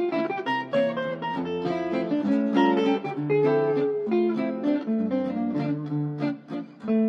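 Background music with plucked guitar playing a quick run of notes, dipping briefly near the end.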